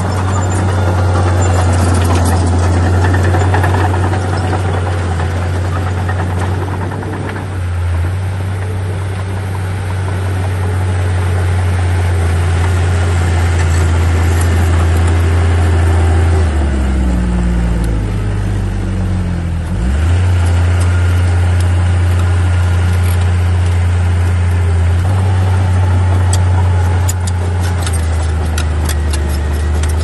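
Komatsu D37P crawler bulldozer's diesel engine running under work load with a steady low drone. A little past halfway the engine note drops for a few seconds, then rises again. Light clicking comes in near the end.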